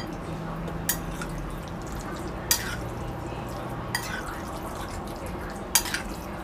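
Dishes and utensils clinking against a ceramic bowl: four short, sharp knocks spread a second or two apart, over a steady low hum.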